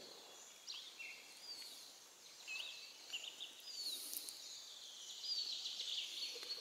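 Small songbirds calling, a scattered series of short high chirps and whistles, over a faint steady background hiss.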